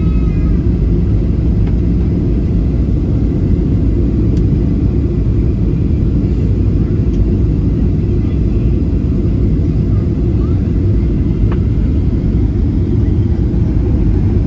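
Steady low rumble inside the cabin of a Boeing 737-800: its CFM56-7B engines and the airflow over the fuselage.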